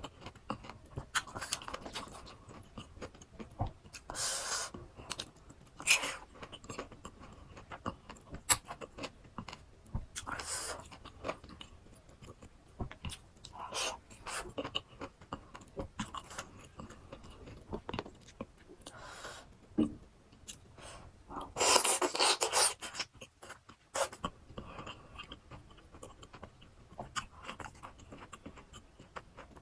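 Close-miked chewing and crunching of fresh fruit rujak, with irregular crisp bites. One louder burst lasting about two seconds comes about three-quarters of the way through.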